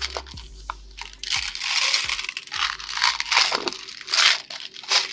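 Slime being squished and mixed by hand: a string of irregular crackling, popping squelches and sharp clicks.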